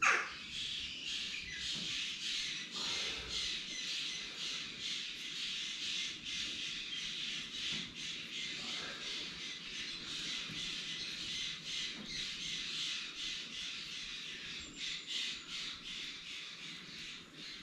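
Paintbrush strokes over wet gelcoat on a boat hull: a quick rhythmic scratchy swish, a few strokes a second, as the brush tips off and flattens the texture left by the roller.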